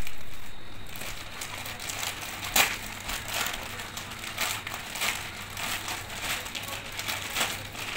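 Plastic courier mailer bag crinkling and crackling in irregular bursts as hands pick at and peel its tape seal to open it.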